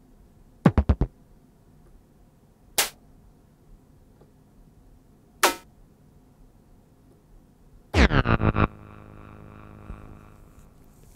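Short synth drum hits from a Novation Bass Station 2 analogue synthesizer: a quick group of four about a second in, two single hits a few seconds apart, then a fast roll of about six hits running into a held synth note that cuts off near the end.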